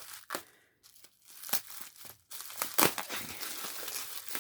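Packing tape and packaging being torn and crinkled by hand while a box is opened, with a few sharp clicks early and a steady run of crinkling through the second half.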